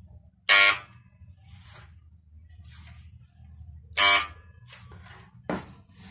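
A corded circular saw's motor switched on in short jolts: two loud buzzes of about a quarter second each, about half a second in and again about four seconds in, with fainter ones between, over a faint steady low hum. The saw is drawing too much current and nearly trips the breaker, a sign of its faulty, sparking armature.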